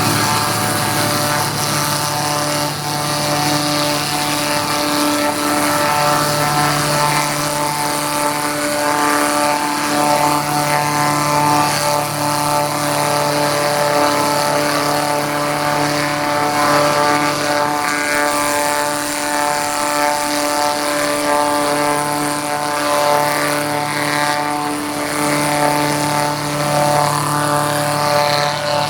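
Wood sawdust and veneer grinding machine running, a loud steady mechanical drone with a humming whine that holds the same pitch throughout.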